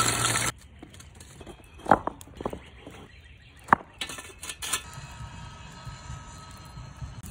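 A loud rush of noise cuts off about half a second in. Then come a handful of sharp, ringing clinks of lump hardwood charcoal pieces knocking together as they are handled at the fire, followed by a faint steady background with a faint hum.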